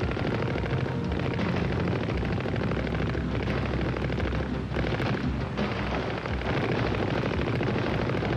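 Heavy machine-gun fire and explosions massed into a dense, continuous din of battle.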